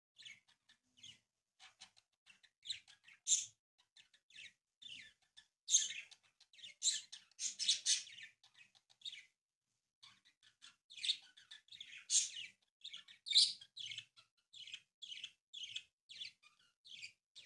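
Sheet of pink origami paper crinkling and rustling in short, irregular crackles as it is creased and shaped by hand into a boat, with a brief pause just past halfway.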